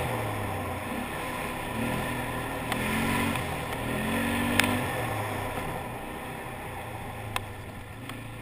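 ATV engine running under a rider's throttle, its pitch rising and falling a few times, then easing off as the quad slows near the end, over steady wind and tyre noise. Two sharp clicks, one about halfway and one near the end.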